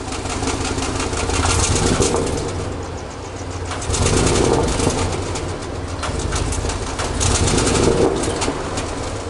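Audi RS Q8's twin-turbo V8 running, heard at the exhaust: a deep, rough burble that fades in and swells louder about three times.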